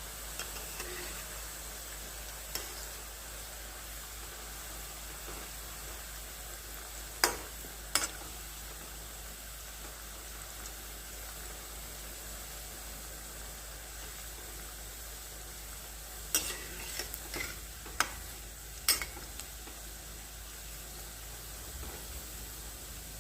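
Rolled bread balls deep-frying in hot oil: a steady sizzle, with a few sharp clicks of a utensil against the pan about 7 and 8 seconds in and several more between about 16 and 19 seconds in.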